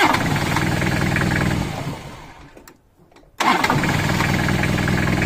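1994 Toyota Hilux's 2.8-litre four-cylinder diesel started twice, its starter powered by a supercapacitor/lithium hybrid cranking battery. Each time it catches at once and runs for about a second and a half before dying away, the second start about three and a half seconds in.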